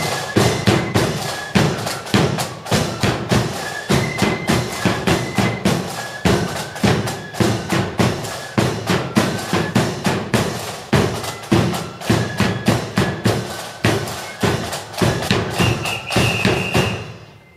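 Marching band drums beating a steady march rhythm, about two strokes a second, with short high notes over them. A held high note comes just before the drumming stops near the end.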